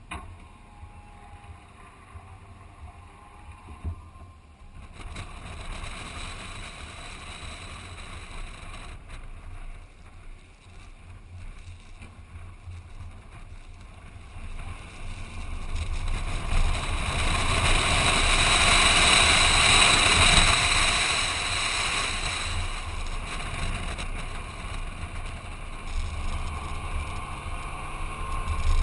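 Toyota Land Cruiser Prado driving on desert sand, heard from a camera mounted on the outside of the body: wind rushing over the microphone over a low engine and tyre rumble. It is fairly quiet at first, builds from about five seconds in, is loudest about two-thirds of the way through, then eases to a steady rush.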